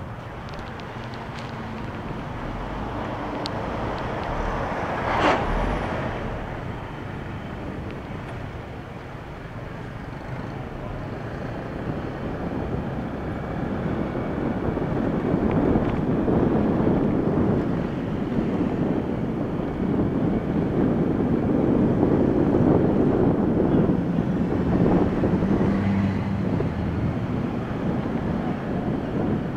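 Motorbike ride through city traffic: the bike's engine and surrounding cars and motorbikes make a steady road noise. A brief, sharp sound stands out about five seconds in, and the noise grows louder from about halfway through.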